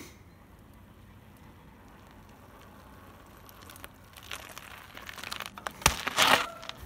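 Faint background hiss, then from about four seconds in a growing run of crunching, crackling noises, with a sharp click near six seconds.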